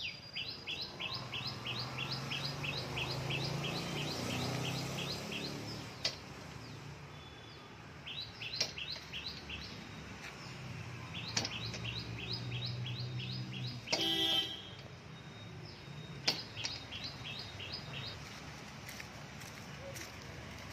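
A small bird sings fast series of short, high, repeated chirps, about four to five a second, in several bouts. About two-thirds of the way through there is a brief, louder pitched sound.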